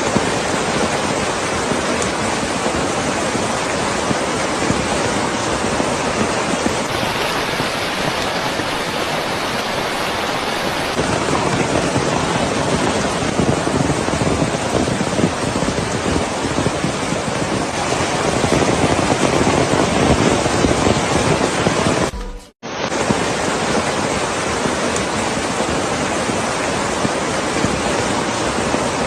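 Floodwater rushing in a steady, loud roar after a cloudburst, broken by a short cut about three quarters of the way through.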